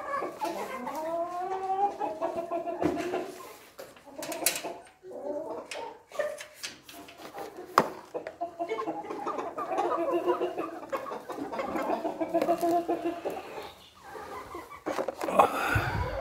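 A flock of chickens clucking and calling, many birds overlapping, with a few sharp knocks in between.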